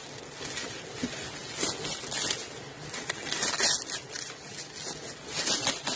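Clear plastic wrap crinkling and crackling as it is pulled and peeled off a steel threaded rod, in irregular rustles that come louder about two seconds in and again near the end.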